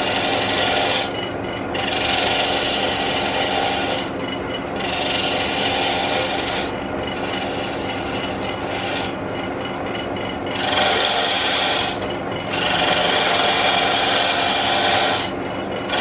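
Turning tool cutting a spinning wooden blank on a Jet wood lathe, in about six passes of one to three seconds each with short breaks between them, over the steady hum of the running lathe. The blank is being trued round and shaped into a goblet.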